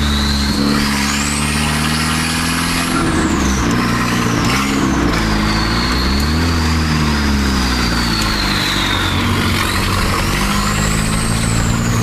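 Mk4 Volkswagen GTI's 1.8-litre turbo four-cylinder heard from inside the cabin while driving, its engine note rising and falling with the throttle over a high whine that climbs and drops. The exhaust flex pipe is broken, so the leaking exhaust sounds like a truck.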